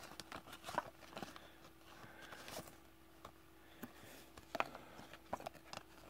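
Trading cards being handled and shuffled in the hands: scattered faint clicks and light rustles of card stock, over a low steady hum.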